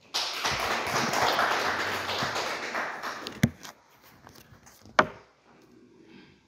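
Audience applause for about three seconds, dying away, followed by two sharp knocks a second and a half apart.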